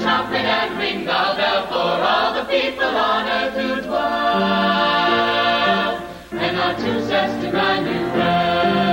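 Mixed-voice high school pop choir singing, with a chord held for about two seconds midway and a short break before the singing picks up again.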